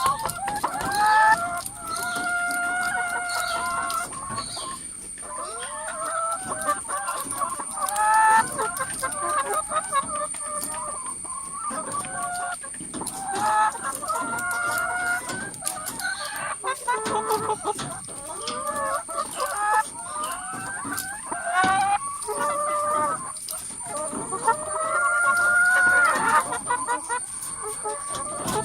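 A flock of hens in a coop clucking and squawking, many calls overlapping without a break, some of them drawn out for a second or more.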